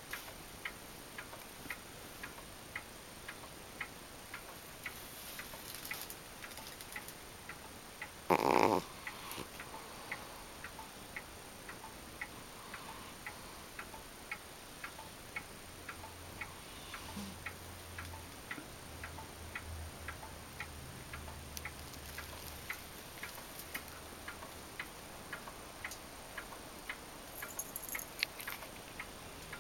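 Pendulum wall clock ticking steadily, about two to three ticks a second, over a sleeping cat's faint snoring. About a third of the way in, one brief loud sound lasts about half a second.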